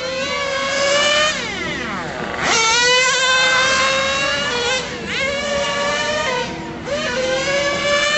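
Small two-stroke nitro engine of a 1:10 RC touring car (Serpent 720) running on track, revving up and dropping back repeatedly, with about four climbs in pitch and falls between as the throttle is opened and released.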